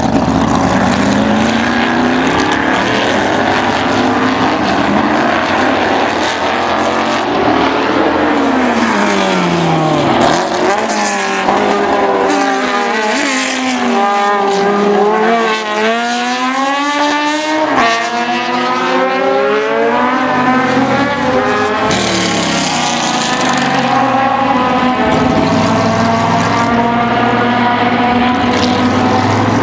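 Open-cockpit sports-prototype race cars running hard past on a circuit, engines revving up and down through gear changes. In the middle, several engines overlap, their pitches falling and then rising again.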